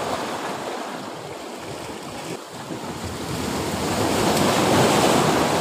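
Sea waves surging and washing against the rocks at the water's edge, the surge building to its loudest about four to five seconds in.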